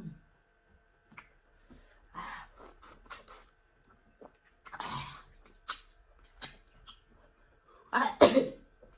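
Close-up eating sounds from starch and pepper soup: wet chewing and lip smacks with scattered small clicks, and a louder burst of mouth noise about eight seconds in.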